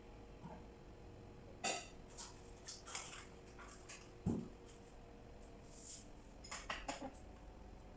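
Scattered light clicks and knocks of small hard objects being handled, with a sharp click about two seconds in and a duller knock about halfway through.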